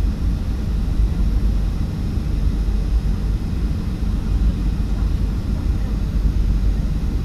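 Steady low rumble of an airliner's engines and rushing air heard inside the passenger cabin on final approach for landing.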